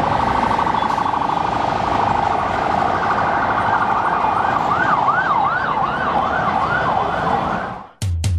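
Road traffic noise with an emergency-vehicle siren. From about halfway in, the siren sweeps quickly up and down, about two or three times a second. It cuts off just before the end as a drum beat comes in.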